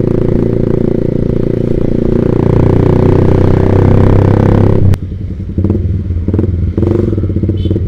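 Yamaha Vixion's single-cylinder four-stroke engine running through an aftermarket Proliner racing exhaust, building under throttle, then dropping off suddenly about five seconds in. A run of sharp crackles follows over the quieter engine note.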